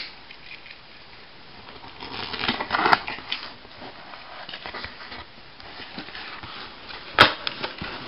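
Rustling and scraping handling noise from a cardboard box being worked open, swelling about two to three seconds in, with a sharp click near three seconds and a louder one about seven seconds in.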